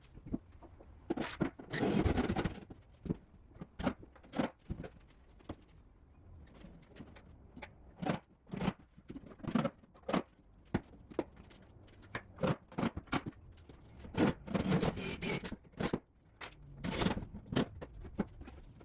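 Scattered knocks, taps and clatter from handling and fitting kitchen cabinets, with short scraping sounds about a second long near the start and twice near the end.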